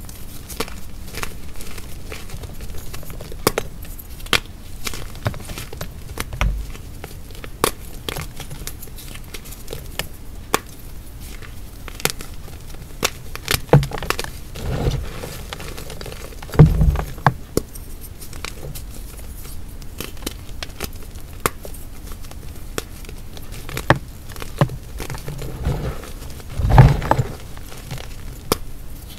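Dried hearts of pressed gym chalk being crushed and crumbled by hand: dry crackling with many small sharp cracks, and a few heavier crunches that land with a low thud.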